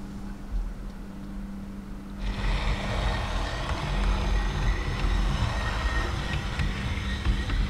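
OO gauge model trains running on the layout: a steady rumble with a thin high whine starts about two seconds in, over a low steady hum.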